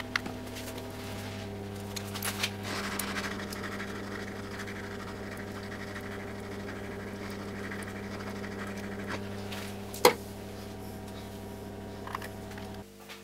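Hot-air rework station blowing onto the TV mainboard to desolder the SPI flash chip: a steady hiss of air over a low fan hum, cutting off suddenly near the end. A single sharp click about ten seconds in.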